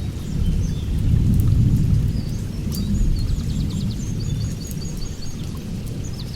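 A deep low rumble that swells about a second in and slowly fades, with small birds chirping and giving quick trills over it.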